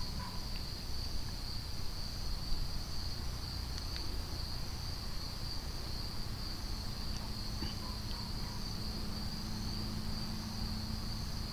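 Insects chirping in a steady, high-pitched chorus, unbroken throughout, over a low rumble.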